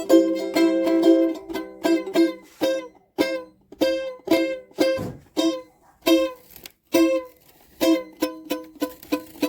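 A mandolin strung with seven of its eight strings being picked, short plucked notes in quick runs with a couple of brief breaks.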